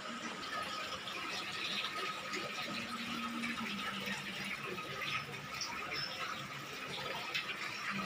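Steady running water, with a faint steady high tone underneath.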